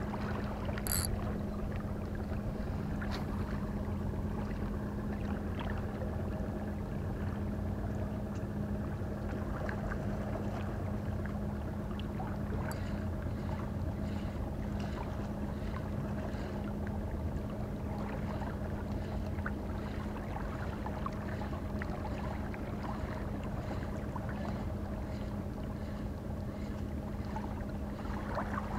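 Steady low boat-engine drone with a constant hum, holding level throughout, with a few faint scattered ticks.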